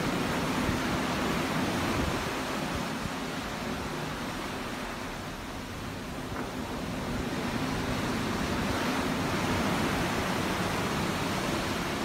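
Ocean waves washing and rolling in a continuous rushing hiss that eases a little around the middle and builds again toward the end.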